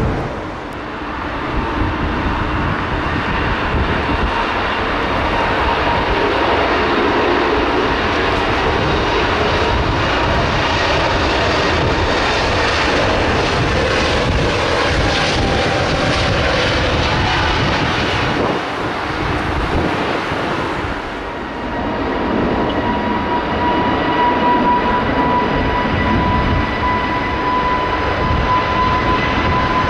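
Airbus A320neo-family airliners' jet engines at takeoff power, a loud steady rushing roar with a whine running through it. The sound dips briefly twice as one departure gives way to the next. Near the end the engine whine grows stronger and edges upward as the next jet spools up on its takeoff roll.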